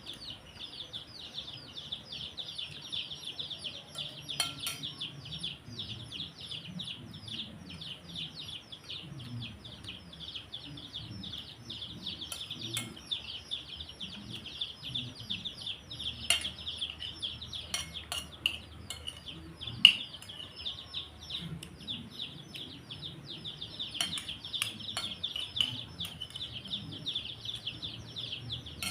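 Many small birds chirping rapidly and without pause, with occasional sharp clinks of cutlery against dishes.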